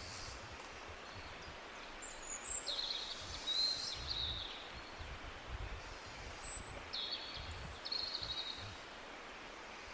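Tropical birds calling over the steady rush of a jungle waterfall. There are two short bouts of high chirps and trills, one about two seconds in and another about six and a half seconds in.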